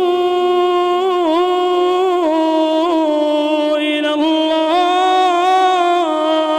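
A man's solo Quran recitation in melodic tajweed style, drawing out one phrase in long held notes with brief ornamental turns of pitch and no pause for breath.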